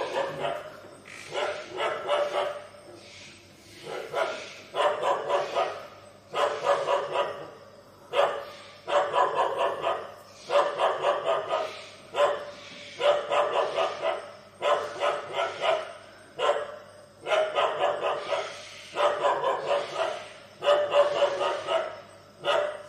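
Dog barking in repeated bouts of quick barks, one bout roughly every two seconds.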